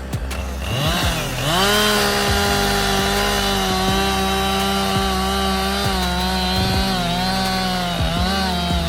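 Gasoline chainsaw revving up to full throttle about a second in, then running at high speed through a cut, dipping briefly twice near the end before dropping off.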